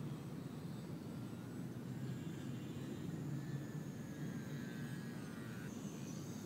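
Electric motor and propeller of a small foam RC flying wing whining faintly overhead, its pitch wavering and shifting down about three-quarters of the way through as it flies by, over a steady low background rumble.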